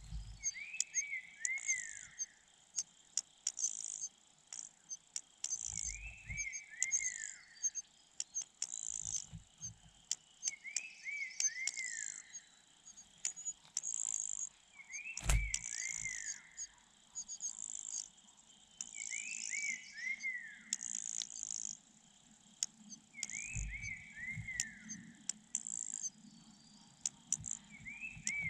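A bird repeating a short phrase of three or four falling whistled notes every four to five seconds, over steady high, rapid chirping. A few low thumps and one sharp knock about halfway through.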